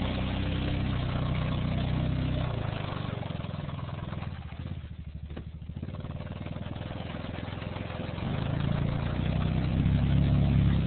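Honda Rincon ATV's single-cylinder engine running under throttle, dropping to a slow, low putter around the middle, then revving up again over the last few seconds.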